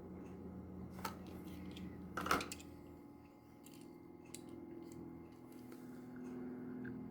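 Hot Wheels blister-card package being opened by hand: scattered clicks and crinkles of plastic and cardboard, with one louder crackle about two seconds in.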